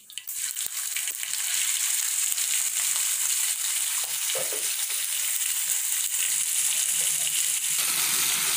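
Chopped onions sizzling steadily in hot sesame oil in a cast-iron skillet. The sizzle swells over the first second as the onions hit the oil, then holds as an even hiss.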